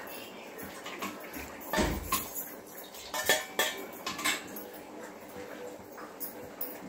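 Steel spoon clinking and scraping against a stainless steel plate as egg fried rice is scooped, in a handful of separate knocks, the loudest about two seconds in.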